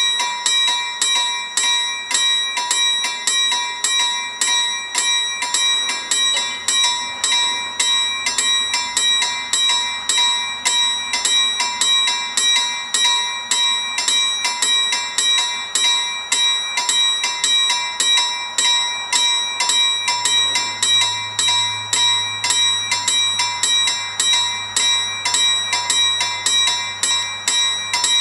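Level crossing warning bell ringing in a rapid, even rhythm of roughly two and a half strikes a second, signalling that a train is approaching.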